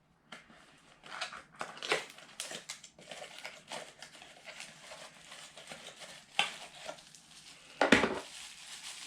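Hands unpacking and handling small airsoft parts and accessories: irregular rustling and crinkling of packaging, with light clicks and knocks of the parts, and a sharper knock about six seconds in and a louder one about eight seconds in.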